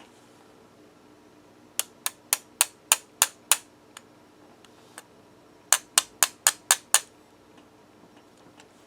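Two runs of about seven sharp, evenly spaced clicks or taps, the second run a little faster than the first, with a couple of single faint clicks between them.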